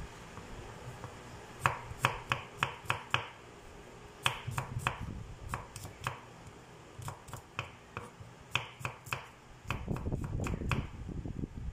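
Chef's knife slicing garlic cloves on a wooden cutting board: short runs of sharp knocks as the blade strikes the board, several in quick succession, with pauses between runs.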